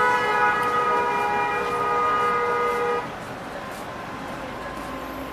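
A vehicle horn blares with a steady, multi-toned blast for about three seconds, then cuts off, leaving the hum of street noise.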